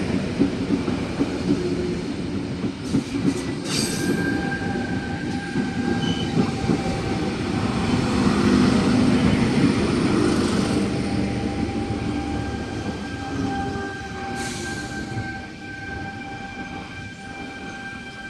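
A train running past on the rails: a loud rumble with a steady high whine and a few sharp clicks about three to four seconds in, fading away toward the end.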